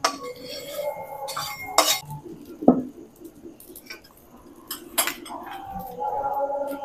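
Metal spatula knocking and scraping against a metal kadai (wok) as roasted peanuts are tipped out of it: a handful of separate sharp clinks.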